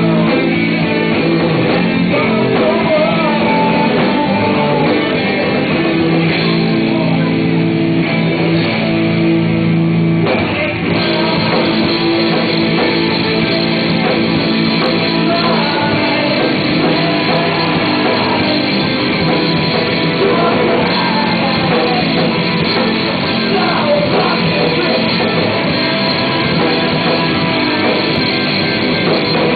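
Loud rock music with guitar and singing, the sound cut off above the middle of the treble.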